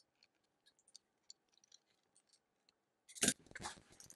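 Faint scratching and small clicks of a utility knife blade cutting into the plastic wrap of a battery pack, then about three seconds in a louder crinkling rustle as the plastic wrap is pulled open.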